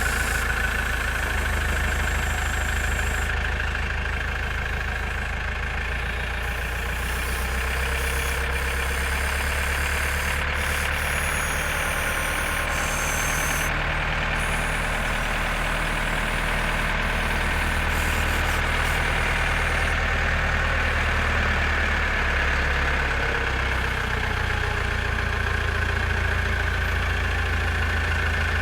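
JCB 4CX backhoe loader's diesel engine running steadily, with a steady high whine over the low engine note.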